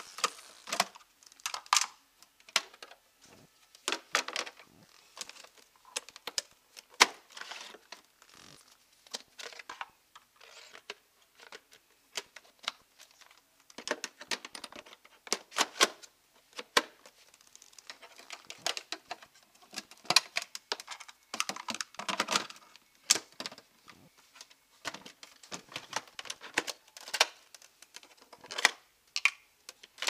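Hard plastic parts of a Miele Blizzard bagless vacuum cleaner being handled: the dust container and its parts are taken out and fitted back, giving many irregular sharp clicks, knocks and small rattles with some rustling between them.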